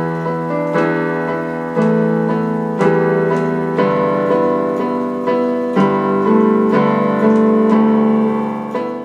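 Intro music on piano or electric piano: sustained chords with new notes struck roughly every second.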